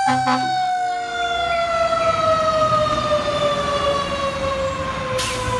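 Fire engine's siren winding down in one long, slowly falling tone, over the low rumble of the truck. A short horn blast sounds right at the start, and there is a brief hiss near the end.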